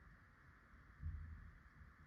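Near silence: a faint steady hiss, with a brief low rumble about a second in.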